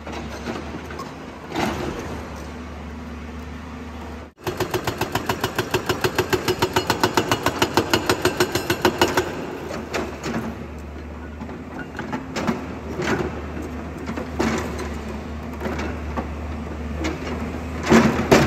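Excavator engine running, with a hydraulic rock breaker hammering at about seven blows a second for some five seconds, then a few scattered clanks.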